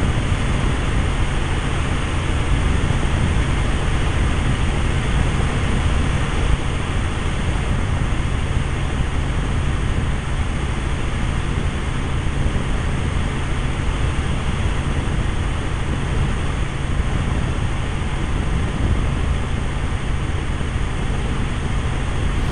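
Helicopter in steady flight: a constant low engine and rotor drone with a rushing noise over it.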